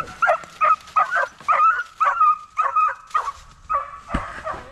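Young beagle barking in a run of quick, high yelps, about two to three a second, as she works to jump a rabbit out of a brush pile. A single low thump comes near the end.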